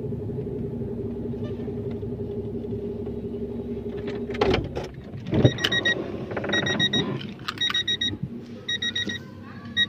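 A vehicle engine runs steadily. About halfway in there is a thump, and after it an electronic beeper sounds in quick groups of high pips, repeating about once a second.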